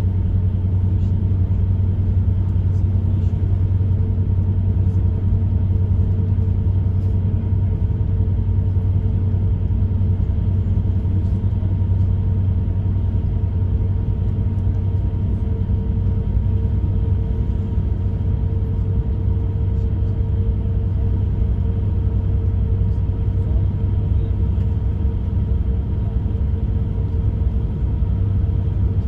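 Bus moving along the road, heard from inside the cabin: a steady low engine and road rumble with a constant hum above it and a few faint ticks.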